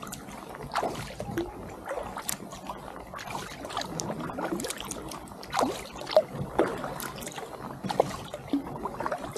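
Double-bladed kayak paddle strokes: the blades dip and pull through calm lake water, with irregular small splashes and drips.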